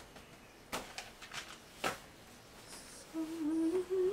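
A few light knocks and rustles of a plastic basket and cloth being handled on a table, then from about three seconds in a woman humming a tune that steps up in pitch.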